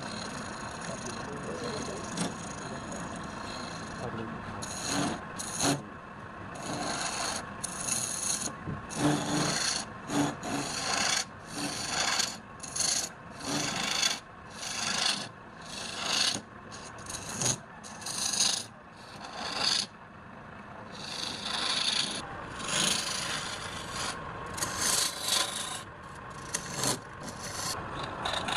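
Wood being worked on a lathe, a tool scraping against the spinning wood. The scraping is steady at first, then comes in repeated strokes about once a second, then longer passes near the end.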